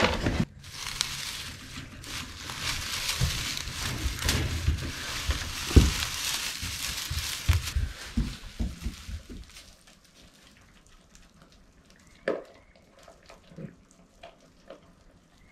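Straw bedding rustling and crunching as it is stepped through and handled, a dense crackle for about nine seconds. Then it goes much quieter, with only a few faint short sounds.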